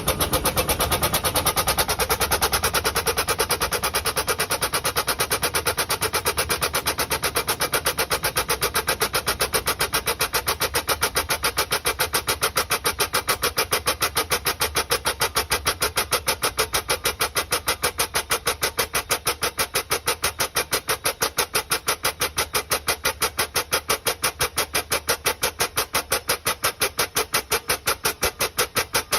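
Air-powered aircraft line jack's pneumatic pump cycling in a rapid, even rhythm of air puffs, several a second, as it raises the jack under the aircraft's weight. It starts abruptly.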